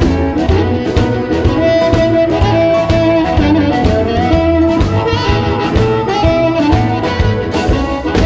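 Electric blues band recording: drums keep a steady beat under electric guitar and bass, while an amplified blues harmonica holds long lead notes. A cymbal crash near the end.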